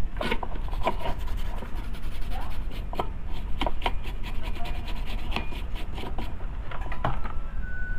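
A brush scrubbing the solder side of an induction cooker's circuit board, its bristles rubbing across the board in many quick, irregular strokes.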